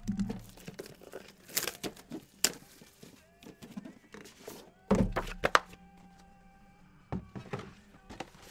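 Boxes of trading cards being handled and set down on a table: a string of irregular thunks and knocks with light rustling, the heaviest pair about five seconds in.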